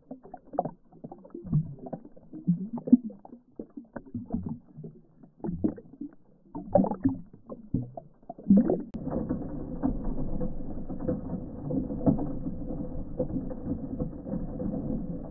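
Stream water rushing through a gold-prospecting sluice box, heard muffled from at and under the water line. At first it comes in irregular gurgles and sloshes, then from about nine seconds in it settles into a steady rush.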